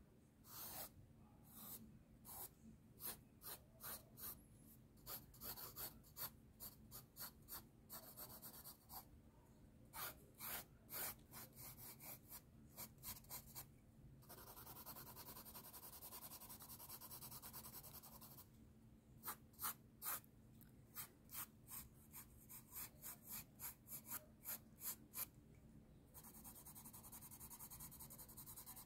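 Faint pencil scratching on sketchbook paper: quick repeated hatching strokes, about two or three a second, broken by two longer stretches of continuous shading, one about halfway through and one near the end.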